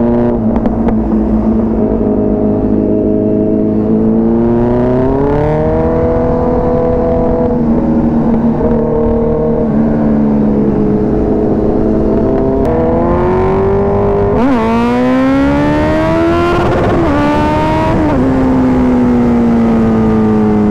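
Kawasaki Z900's inline-four engine pulling hard, its revs climbing in rising sweeps and dropping sharply at two quick upshifts about two-thirds of the way through, then falling slowly as the throttle is eased.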